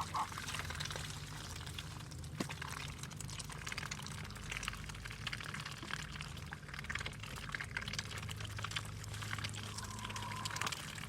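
Water pouring and splashing steadily, with many small splashes and drips.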